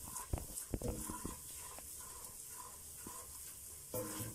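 A spatula stirs a flour-and-fat roux in a stainless steel pot, kept pale for a béchamel. It knocks and scrapes against the pot several times in the first second or so, then stirs more quietly, with one more knock near the end.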